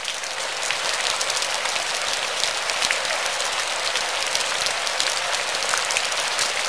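Steady rain falling, a constant hiss with many separate drop hits ticking through it.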